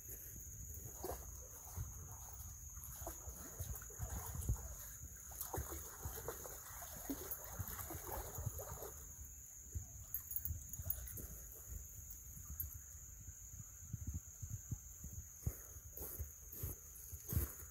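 Great Pyrenees dog wading and lapping water in a shallow creek: small irregular splashes and laps, busier for a few seconds in the middle. A steady high insect drone sounds underneath.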